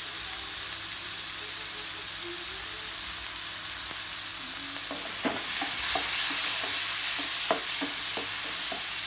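Chicken pieces sizzling in hot oil in a non-stick frying pan. From about halfway, a wooden spatula stirs them, with scattered knocks against the pan.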